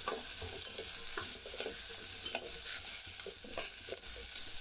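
Raw mango pieces sizzling in hot groundnut oil with mustard seeds and curry leaves, being sautéed until they soften. A spoon scrapes and taps against the pan now and then as they are stirred.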